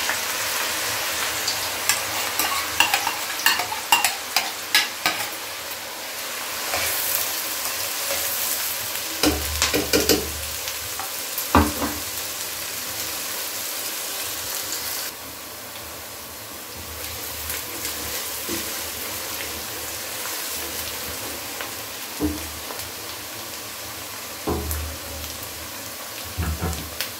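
Chopped onions sizzling as they fry in hot oil in a wok, loudest just after they go in and gradually quieter. Scattered clicks and a few knocks against the pan.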